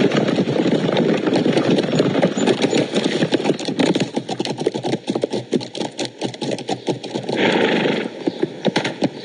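Horses' hoofbeats on grass, many quick thuds as riders move about. In the first half they sit under a dense rumbling noise, and later they stand out clearly with a short burst of noise near the end.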